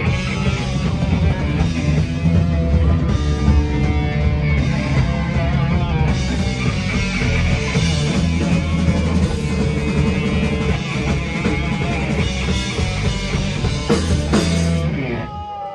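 Live heavy rock band playing loudly: distorted electric guitar, bass and drum kit. The music stops abruptly near the end as the song finishes.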